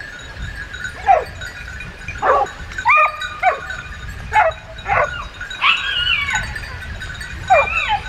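A dog giving a string of short, high yips and barks, about one a second, a few drawn out into whines that slide up and down in pitch.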